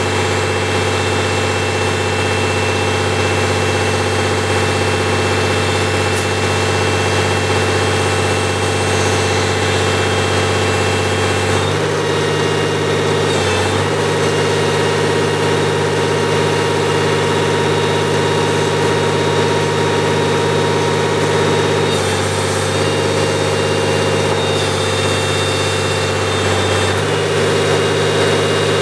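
Diesel engine of a FLU419 backhoe running steadily near idle, its note stepping to a different pitch and back several times as the load changes.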